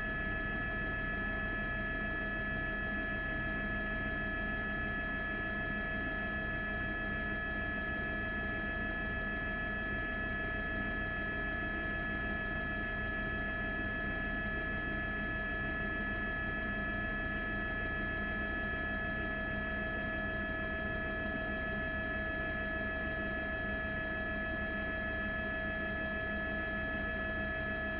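A steady drone of several held tones over a low hum, unchanging in pitch and loudness throughout.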